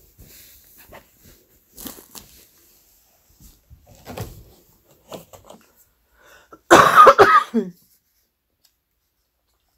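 A person coughing in a short, loud burst about two-thirds of the way through, after a few faint small noises.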